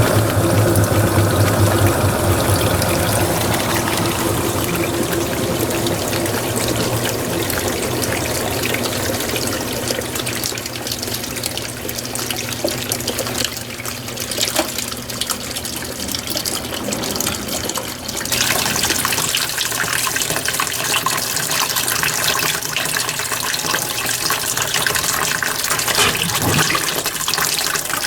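Water running and splashing inside a Mueller Energy 8 kg top-load washing machine. A low hum fades over the first few seconds, and the water noise grows louder and brighter about two-thirds of the way in.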